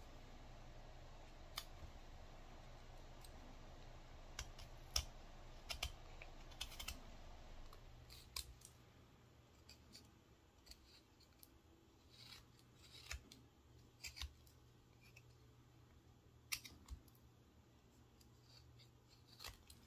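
Carving knife cutting small chips from a wooden figure blank: faint, irregular snicks and scrapes of the blade in the wood, coming more often in the first half.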